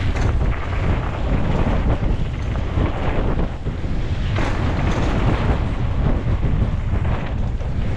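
Wind rushing over the microphone of a mountain biker riding fast downhill: a steady loud rumble, with a few brief knocks from bumps in the trail.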